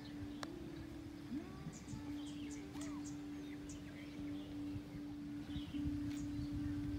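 Small birds chirping repeatedly over wind rumble on the microphone and a steady low hum. About half a second in there is one sharp click: the tap of a club on a golf ball.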